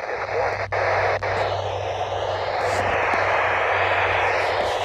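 Steady static hiss from a weather radio receiver on a weak, distant station, with a low hum underneath and a couple of faint clicks in the first second or so.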